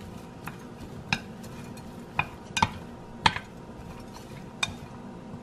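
Chopsticks tossing chopped chicken gizzard, liver and herbs on a tray, with about six light, irregular clicks as the sticks tap the tray.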